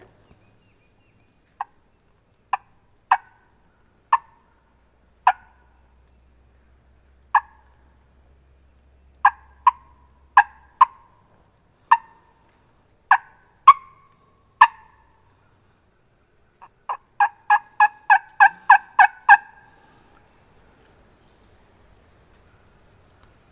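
Turkey call imitating a hen turkey to draw a gobbler: short, sharp single notes at uneven spacing, then a quick run of about a dozen notes near the end.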